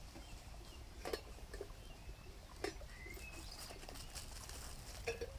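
A few light clicks and knocks from the metal handle of a cook pot sitting on a wood-burning camp stove being handled, with short bird chirps and a low rumble behind.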